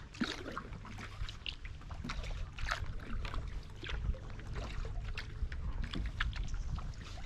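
Kayak paddling: carbon paddle blades dipping and dripping in the water, a run of small irregular splashes and trickles over a low steady rumble.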